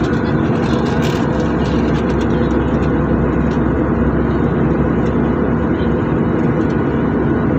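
Airliner cabin noise in flight: a steady drone of engines and rushing air, with a constant low hum running through it.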